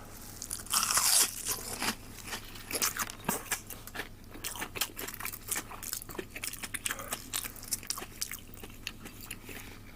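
Crunching bites and chewing on a freshly fried menchi katsu (breaded minced-meat cutlet), its crispy coating crackling. The loudest bite comes about a second in, followed by a run of small crunches.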